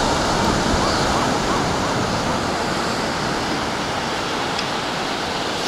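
Shallow ocean surf washing over sand, a steady rush of water.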